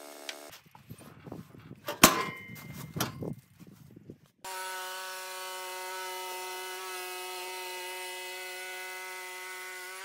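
Irregular wooden knocks and metal clanks of a timber being handled on a portable bandsaw mill, with one loud metallic clang about two seconds in. Then, from about halfway, the sawmill runs steadily at a constant pitch.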